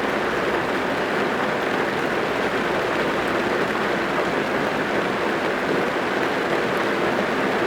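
Steady rain drumming on a car's roof and windows, heard from inside the cabin as an even, unbroken patter.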